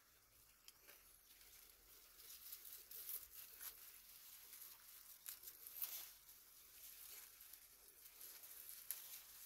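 Faint, irregular crackling and rustling of dry grass and dirt stirred by dogs and a puppy rooting around for food.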